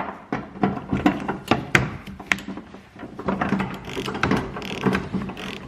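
A screwdriver working a 10 mm headlamp mounting bolt loose: many short, irregular metallic clicks and knocks, several a second.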